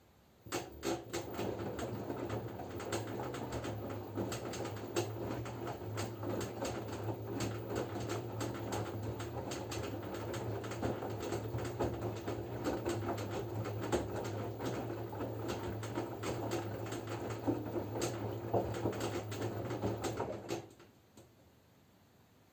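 LG F10B9LD front-loading washing machine turning its drum in the wash phase: a steady motor hum under the many small clicks of the laundry tumbling. It starts about half a second in and stops about 21 seconds in, as the drum pauses between turns.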